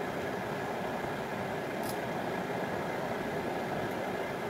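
Steady mechanical background noise, like a running motor or fan, with a faint high click about two seconds in.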